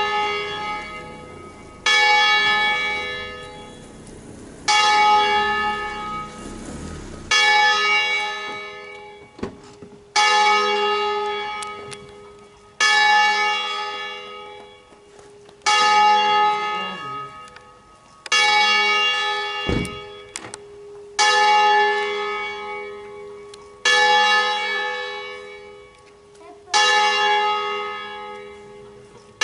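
Smallest bell of a five-bell ring, cast by Roberto Mazzola, swinging full circle a distesa and striking about every two and a half to three seconds, each stroke ringing on and fading before the next. A couple of short low knocks stand out between strokes.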